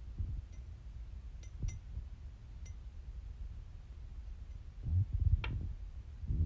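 A small perfume-oil vial clinks lightly against the neck of a glass bottle several times while it is held upside down to drain, then gives a louder knock with a short ring about five seconds in, as it is handled among the other containers.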